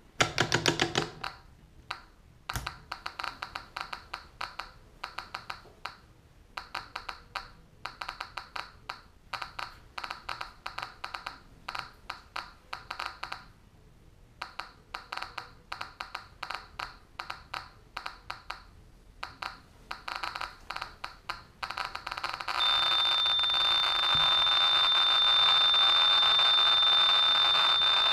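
SV500 Geiger counter's loudspeaker clicking irregularly, often in little clusters, at the background count from its SBT-10 probe, with a dense run of clicks right after it is switched on. About 22 seconds in, the clicks merge into a dense continuous crackle as a pitchblende (uranium ore) sample is brought close, and a steady high warning tone comes on and holds.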